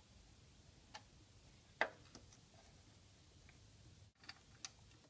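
1995 Honda Accord distributor being fitted by hand onto the engine, giving a few faint scattered clicks and light knocks of metal and plastic parts touching. The loudest is a sharp click a little under two seconds in.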